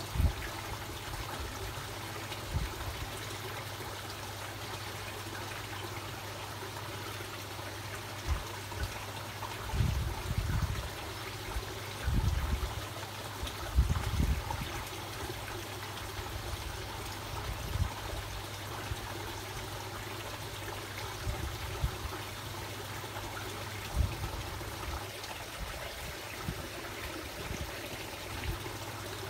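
Koi pond water trickling and bubbling steadily over a low, steady hum, with a few dull low thumps about a third of the way through and around the middle.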